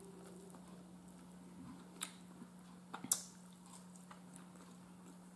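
A person quietly chewing food, with a few short clicks and smacks about two and three seconds in, over a steady low hum.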